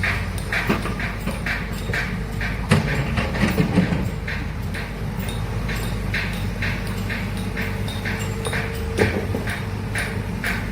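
Heavy earthmoving machine's diesel engine running steadily, with repeated short metallic clicks and clacks over it, a heavier knock and a few clunks about three seconds in.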